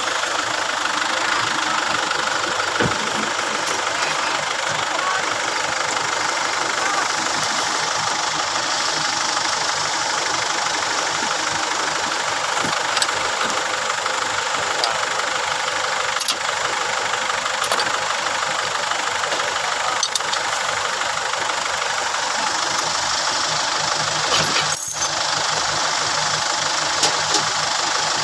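An engine idling steadily, with one short metallic knock near the end.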